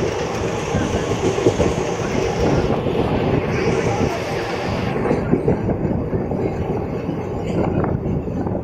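A moving train running, heard from aboard: a steady rumble of wheels on the rails with some clatter. A high hiss drops away about five seconds in.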